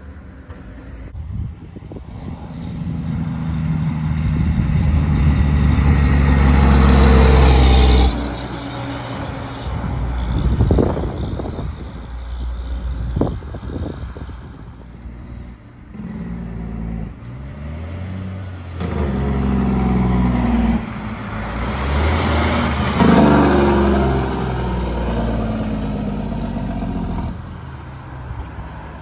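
Heavy diesel trucks passing on the road with their engine compression brakes (Jake brakes) running, in separate clips cut together. The first builds up loud and cuts off suddenly about eight seconds in; another loud pass comes in the second half.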